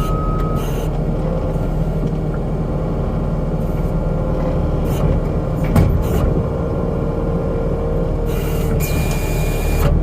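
New Holland C327 skid steer's diesel engine running steadily under heavy load, carrying a liquid-filled fuel tank near the limit of its lift capacity. A single sharp clank about six seconds in.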